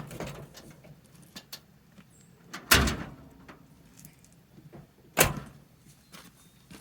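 Two loud thunks about two and a half seconds apart, with lighter clicks and rattles around them: a pickup truck's door and hood latch being worked as the hood is popped open.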